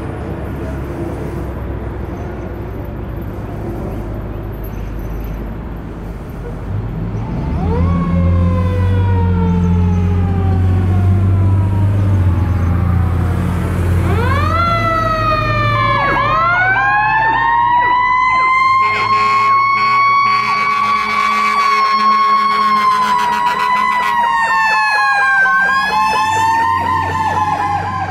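Fire engine responding with its siren on: a mechanical-type wail winds up and coasts slowly down, then about halfway through it winds up again and holds a steady high wail. A fast electronic-sounding yelp joins near the end. Under it, a low steady drone of the truck's engine and road traffic.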